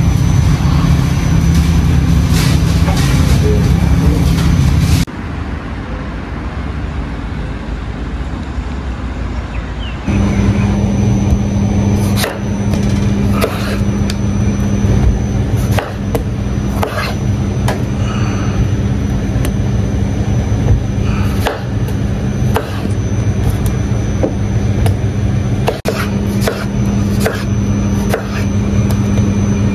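A steady mechanical hum with scattered clicks and knocks. It drops to a quieter hum about five seconds in, then about ten seconds in a different, steadier hum with a low drone returns, with the knocks coming more often.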